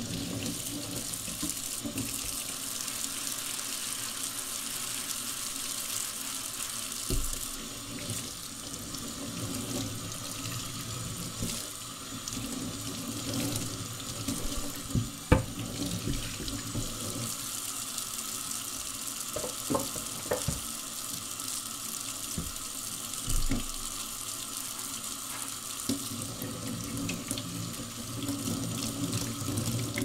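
Kitchen tap running steadily into a stainless steel sink while a wooden cutting board and a knife are rinsed under the stream. A few sharp knocks and clinks break through the water, the loudest about halfway through.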